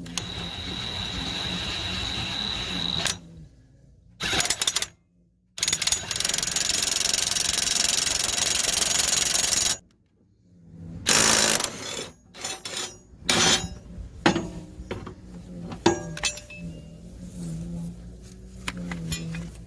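Cordless impact wrench running in bursts on a mower blade bolt: a run of about three seconds, a short burst, a longer run of about four seconds, then several short bursts and clicks.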